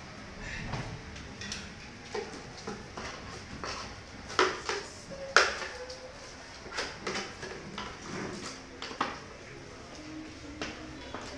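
Irregular clinks and knocks of utensils and metal cooking pots being handled, the loudest two about four and five seconds in.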